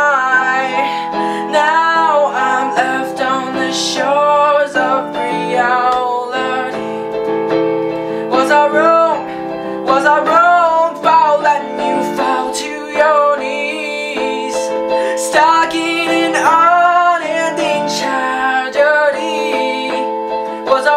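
A song playing: a voice singing a melody over piano and guitar accompaniment.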